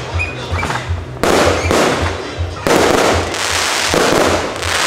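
Aerial fireworks shells bursting overhead: two sudden loud bursts about a second and a half apart, each followed by a long fading tail of noise. Music with a steady low beat plays underneath.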